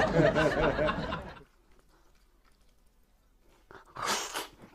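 A man laughing "hehehe" for about a second and a half. Near the end come a few noisy bites and sucks as he starts eating a piece of braised pork trotter held in his hand.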